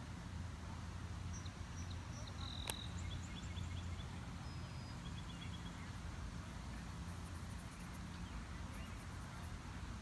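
Outdoor pond-side ambience: a low, steady rumble with faint, high small-bird chirps through the first half and a single sharp click a little under three seconds in.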